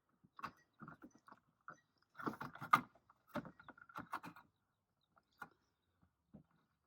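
Small clicks and scrapes of screws, nylon spacers and the arch guard being handled as the screws are started into the wheel arch liner by hand. The clicks come thick in the middle, then thin out to a few faint ticks.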